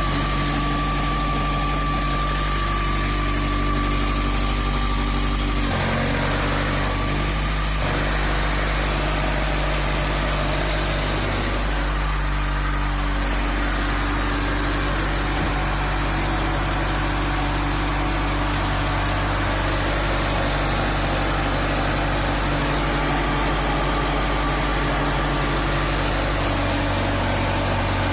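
Subaru WRX STi's turbocharged flat-four engine running steadily at idle, with the tone shifting a few times in the first half.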